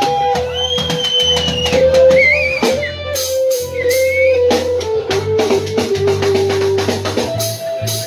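Rock music: an electric guitar plays a lead line with sliding notes over bass and a drum kit beat.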